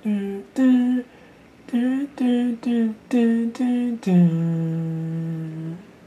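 A voice humming a slow, wordless tune: a run of short notes that ends on one long held note.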